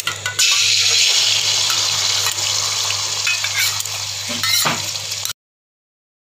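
Beaten eggs frying in hot oil in a steel pan: light crackling of the oil, then a sudden burst of loud sizzling about half a second in as the egg hits the oil, easing slightly, over a steady low hum. The sound cuts off suddenly about five seconds in.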